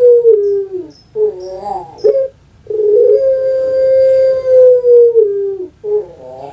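Puter pelung (domestic collared dove, Streptopelia risoria) giving its long call: a long, steady coo that sags in pitch at its end, then a wavering, rolling note and a short clipped coo. After a brief pause, another long coo starts about three seconds in and drops near the end into the next rolling note.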